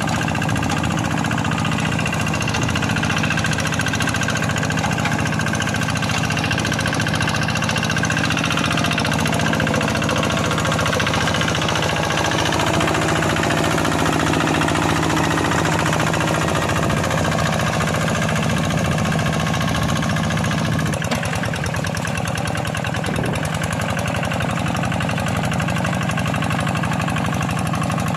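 Single-cylinder Kubota diesel engine of a Quick G1000 hand tractor running steadily under plowing load, its note shifting slightly about three-quarters of the way through.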